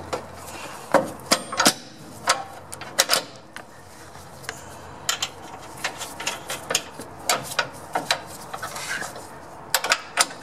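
Irregular metallic clicks and clinks of nuts, bolts, a mounting plate and a wrench being handled while a front control arm is fitted, with a quick run of clicks near the end.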